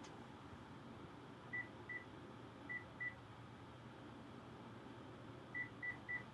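Telephone keypad beeping as a number is keyed in: short, high single-pitch beeps, two pairs and then three in quick succession near the end.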